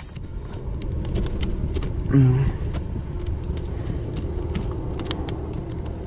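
Steady low rumble of wind and water on the microphone, with scattered small clicks and taps throughout and a brief vocal exclamation about two seconds in.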